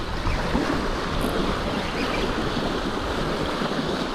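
Small wind-driven waves washing and splashing against a rocky lakeshore, with wind buffeting the microphone as a low rumble.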